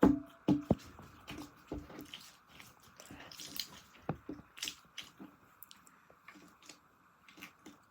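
Hands squishing and working slime, making irregular sticky pops and clicks, loudest in the first second.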